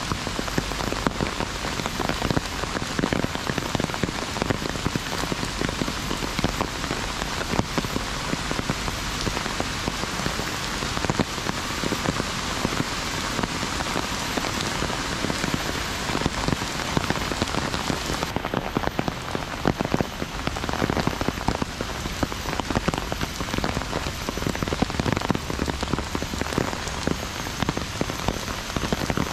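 Heavy rain falling on an umbrella held overhead: a dense, steady patter of countless drops.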